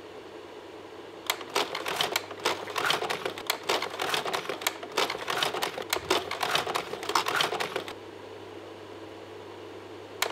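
Rapid, irregular clicking like keys being typed, over a steady low hum. The clicking starts about a second in, stops near eight seconds and starts again at the very end.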